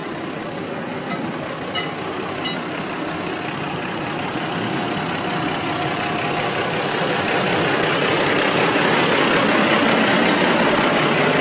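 Vehicle engine running, growing steadily louder over several seconds.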